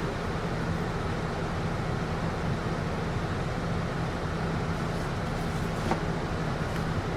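Inside a city bus: the steady whoosh of the air conditioning over a low, even engine hum, with a faint click about six seconds in.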